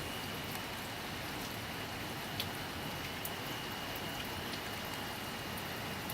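Steady rain falling, with scattered sharp drips ticking close by, the loudest about two and a half seconds in. A faint steady high-pitched tone runs under it.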